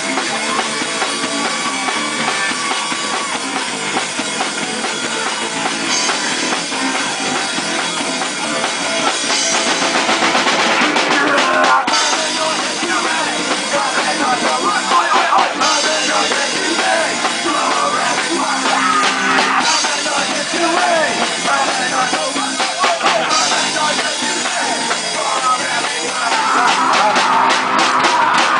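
Street punk band playing live, a rock song driven by a drum kit, with no singing. Near the end a fast run of drum hits comes in.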